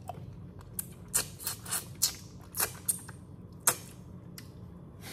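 Boiled crawfish shells cracking and snapping as they are peeled by hand: an irregular run of sharp crackles and clicks, about a dozen.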